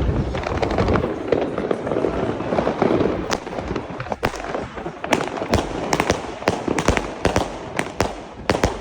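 Two 20 mm 100-shot firework cakes (Albert Feuerwerk Purple Haze) firing. A dense, continuous crackle for the first four seconds or so gives way to a rapid run of separate sharp bangs, about two a second.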